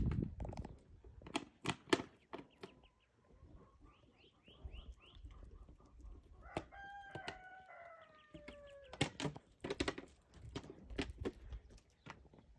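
One long animal call lasting about two and a half seconds, a little past the middle, its pitch sagging toward the end. Before it comes a quick run of short high chirps, and scattered clicks and taps run throughout.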